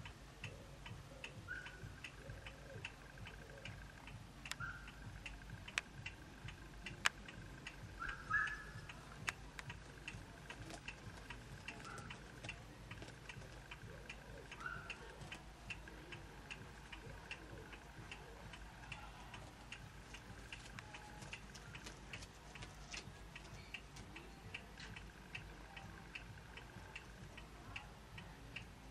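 Faint, steady, evenly spaced ticking, with a few short high chirps scattered through it and two sharp clicks around the middle, the second the loudest.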